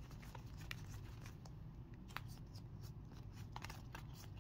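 Faint scattered clicks and flicks of trading cards being fanned and shuffled by hand, card edges snapping lightly against each other, over a low steady hum.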